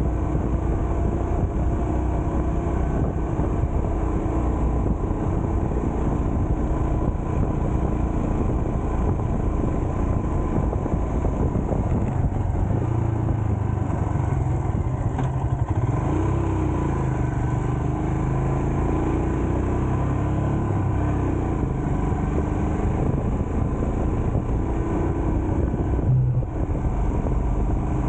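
A road vehicle travelling: steady engine hum with road and wind noise, the engine note rising and falling a little as it goes.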